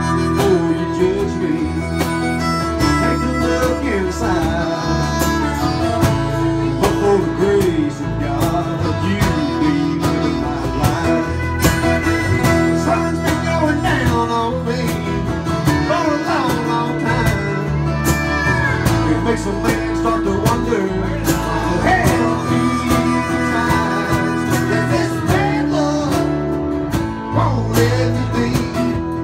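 Live country band playing an instrumental break: strummed acoustic guitar under a bending lead line from a harmonica cupped to the microphone, with pedal steel guitar in the mix.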